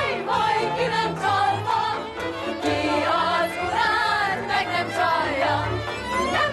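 Women's chorus singing in an operetta style with vibrato, over an orchestral accompaniment.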